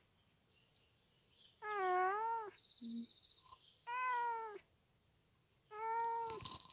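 A black domestic cat meows three times with a rat in its mouth. The meows are about two seconds apart and each lasts under a second, wavering in pitch.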